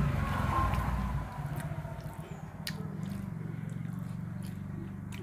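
Close-up eating by hand: rice and curry squished between the fingers on a plate, and a mouthful chewed. A steady low hum runs underneath.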